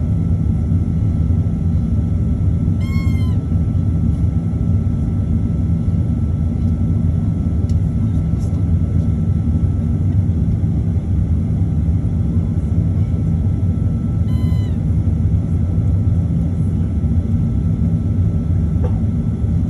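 Steady low rumble of a Boeing 737-900's CFM56 turbofan engines at idle, heard inside the cabin, with a faint steady whine over it. Two brief high-pitched squeaks stand out, about three seconds in and again near the middle.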